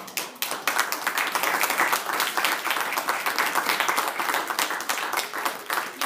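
Audience applauding: many people clapping at once, coming in strongly just after the start and keeping up.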